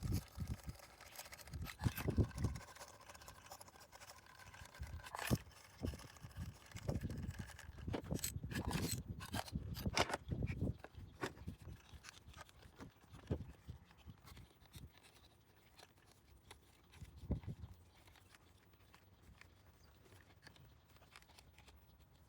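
Intermittent handling noises: clicks, knocks and scraping, busiest over the first ten seconds or so, then dying down to a few faint knocks.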